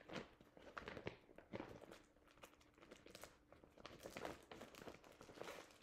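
Faint crinkling and scattered light clicks of cross-stitch project materials being handled, over a faint steady hum.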